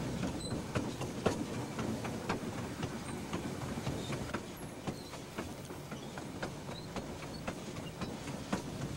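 Streamlined diesel passenger train running along the track, a steady rumble with irregular clicks of the wheels passing over rail joints.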